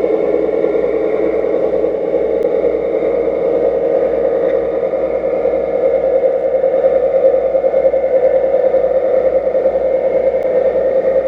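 Steady engine drone with a fine, fast flutter and a faint rattle, running on without a break and growing a little louder about halfway through.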